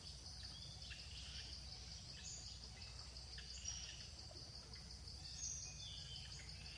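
Faint outdoor ambience: a steady high insect drone with scattered short chirps and calls, over a low rumble.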